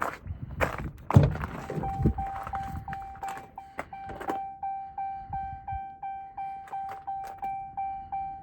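Truck cab door knocking open with a thunk, followed by the cab's warning chime sounding as a steady tone that pulses about two to three times a second, the typical signal of a door left open.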